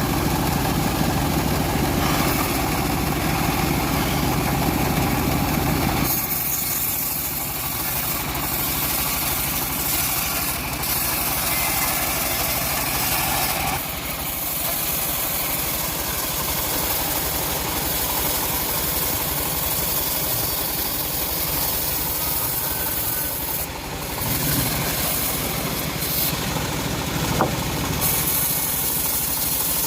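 Long-bar chainsaw running continuously while ripping teak wood. The sound changes about six seconds in, with much less low rumble after that point.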